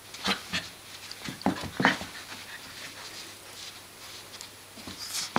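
Greater Swiss Mountain Dog puppy playing with paper: a run of short, irregular dog noises and scuffles, the loudest just under two seconds in and a sharp one right at the end.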